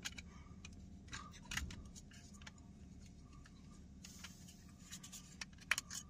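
Faint small plastic clicks and rattles of a VW Passat power window switch module being handled and slid into its plastic trim bezel, scattered at first and coming more often near the end.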